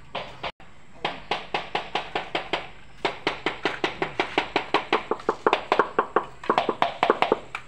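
Rapid, even tapping of a hand tool on ceramic floor tiles, about five sharp knocks a second, louder in the second half, as the tiles are tapped down into their bed.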